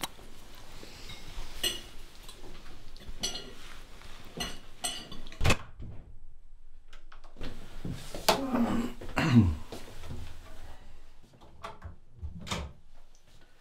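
Cutlery and dishes clinking for several seconds, then a sharp thud about five seconds in. After a short quiet, a low sound slides down in pitch, and one more knock comes near the end.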